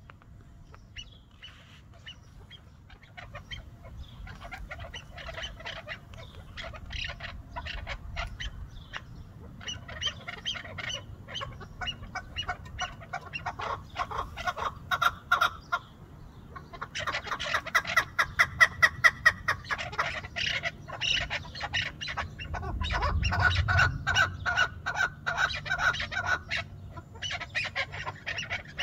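Partridges calling: fast runs of repeated notes from several birds, starting soft and building to a loud chorus about two-thirds of the way through, with short breaks between runs.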